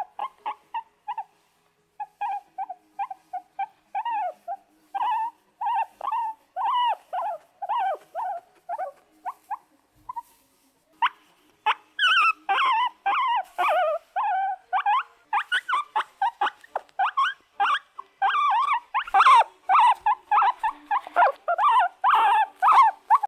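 Puppy whining and yelping in a long run of short, high-pitched calls that bend in pitch. The calls come in spaced bursts at first, then grow louder and come almost without pause from about halfway through.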